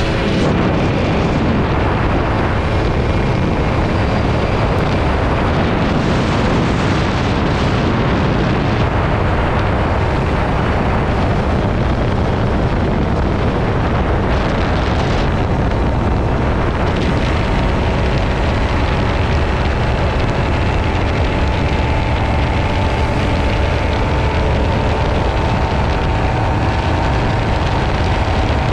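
Wind rushing over the microphone of a motorcycle-mounted camera at about 120 km/h, a steady heavy rumble, with the motorcycle's engine running steadily underneath.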